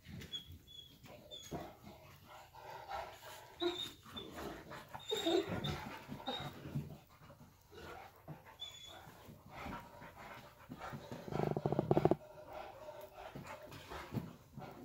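A Saint Bernard and a puppy play-fighting: panting and scuffling, with short high squeaks now and then and a louder, rough stretch about eleven seconds in.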